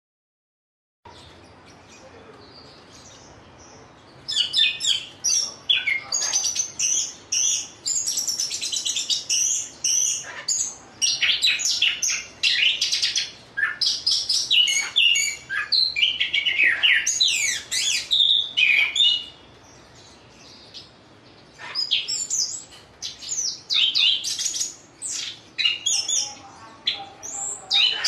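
Chestnut-capped thrush (punglor kembang) singing in its cage: a fast, varied run of high whistled phrases that starts about four seconds in, breaks off for a few seconds past the middle, then resumes.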